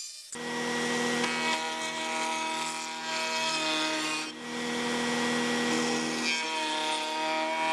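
Table-mounted router running with a bearing-guided bit, cutting along the edge of a maple board: a steady whine with cutting noise. It starts suddenly just after the beginning and dips briefly twice as the workpiece is shifted.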